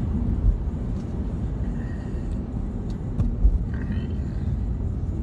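Car cabin noise while driving: a steady low rumble of road and engine, with a couple of dull bumps about half a second and about three and a half seconds in.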